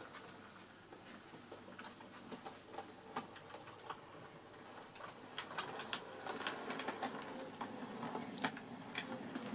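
Bachmann Ivatt 4MT model steam locomotive running along the model railway track towards the listener: light, irregular clicking and rattling that grows louder and busier from about halfway, over a low running sound that rises as it approaches.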